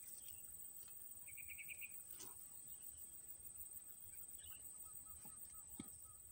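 Faint outdoor ambience: a steady high-pitched insect drone, with a few faint bird chirps, including a quick trill of about five notes about a second and a half in and a run of soft repeated notes near the end.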